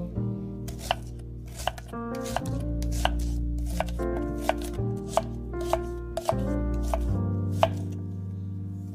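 Knife chopping food on a cutting board in single, irregularly spaced strokes, about a dozen in all, over background music.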